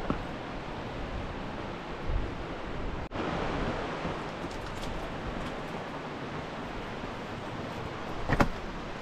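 Steady rushing of a river flowing over rocks, with a sharp knock near the end.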